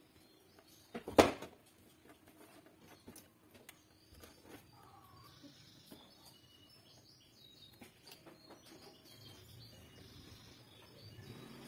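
Small clicks and rustles of wires and connectors being handled on the underside of a gas hob, with one sharp knock about a second in. Faint bird chirps in the background.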